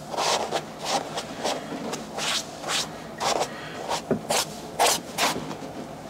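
Small hand brush scrubbing the fabric upper of a quilted slip-on shoe during wet cleaning, in short back-and-forth rubbing strokes, about two a second.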